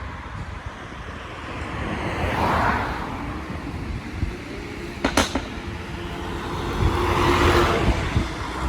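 2018 Mercedes-AMG C43's twin-turbo V6 exhaust running, rising and falling twice. About five seconds in comes a quick cluster of sharp pops, the crackle that the pop tune is made to give.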